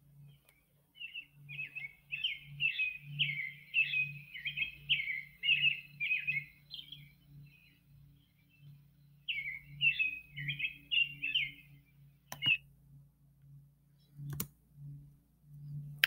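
American robin song: a run of short, warbled phrases, a pause of about two seconds, then a few more phrases. Two sharp clicks follow later.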